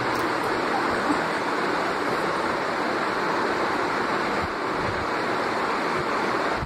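Steady rushing noise with no clear pitch, holding level throughout.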